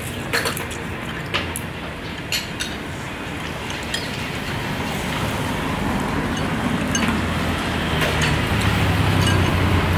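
Chopsticks and spoons clinking against ceramic soup bowls a few times in the first half, over a steady traffic hum. A low vehicle rumble grows louder over the second half.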